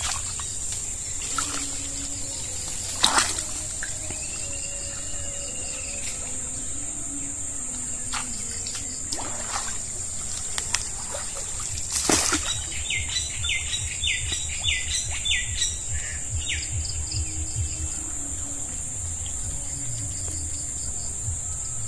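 Birds calling over a steady high insect drone, with a quick run of chirps about halfway through. Now and then water sloshes, and there are a few sharp knocks from handling a woven fish trap in shallow water.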